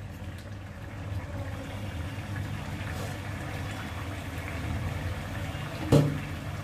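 Curry simmering in a pot on a gas burner: a steady low rumble with soft bubbling. A single short knock comes near the end.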